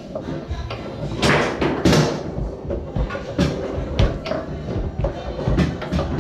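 Foosball rally on a Tornado table: sharp, irregular knocks and slams of the ball being struck by the rod figures and hitting the table walls, several a second.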